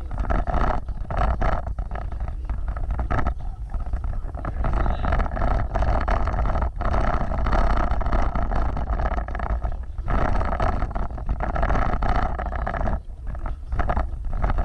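Vehicle driving over a rough off-road trail: a steady low rumble, broken by many short knocks and jolts as it bumps along.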